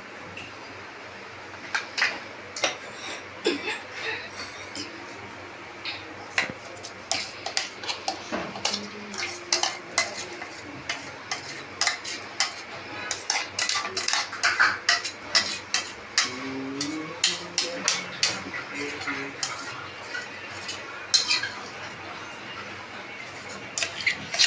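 Steel spoon scraping and clinking against a steel mixer-grinder jar and a steel bowl in many irregular taps and clicks, as wet ground masala paste is scraped out of the jar into the bowl.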